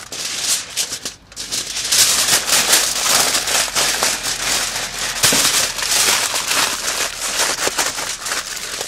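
Aluminium foil crinkling and crackling as gloved hands fold and press it tightly around a lamb shoulder, with a brief lull about a second in.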